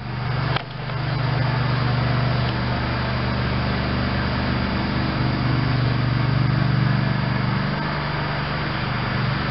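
A motor running steadily: a constant low hum with an even hiss over it, starting right at the beginning and holding level throughout.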